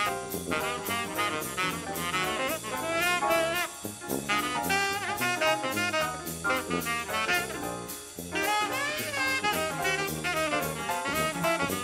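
Jazz music with saxophone and brass over a drum kit.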